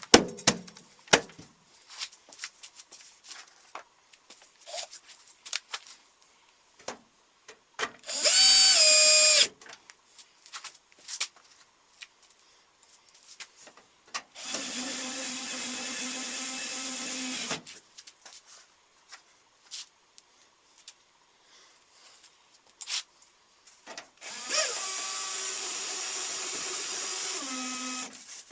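Power drill driving screws into a microwave oven's metal cover in three runs, the first short and loud and the last about four seconds long, dropping in pitch as the screw seats. Clicks and taps of handling the cover and screws come between the runs.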